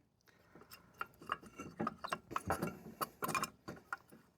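Irregular metallic clicks and clatter of brake parts being handled: a Jeep's front brake caliper and pads being worked loose by hand.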